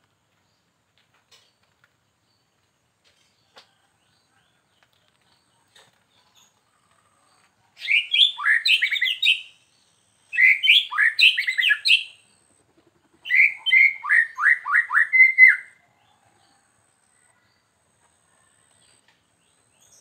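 White-rumped shama singing three short phrases of rapid, varied whistled notes, each about two seconds long, the last ending in a quick series of falling notes.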